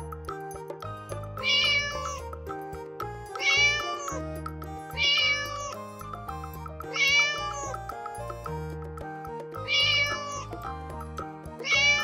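Cat meows, six short high-pitched calls at roughly two-second intervals, over a steady background tune.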